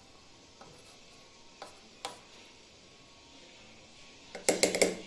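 A few faint taps, then near the end a quick run of loud metal clinks and clatter: kitchen utensils knocking against metal pots and pans.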